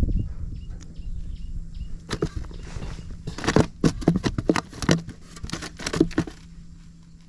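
Climbing perch flapping and thrashing inside a styrofoam cooler box: an irregular run of sharp knocks and slaps, starting about two seconds in and stopping shortly before the end.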